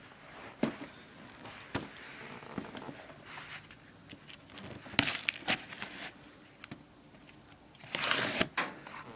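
A cardboard shipping package being opened and handled by hand: scattered clicks and knocks, with short bursts of rustling about five seconds in and again near the end.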